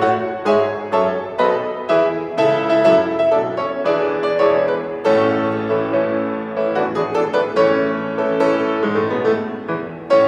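Grand piano played solo: a steady flow of notes and chords, with quicker notes about six to eight seconds in.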